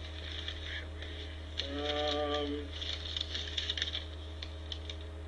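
Paper rustling and crinkling in short bursts as a letter is unfolded and handled, with a short hummed voice about two seconds in.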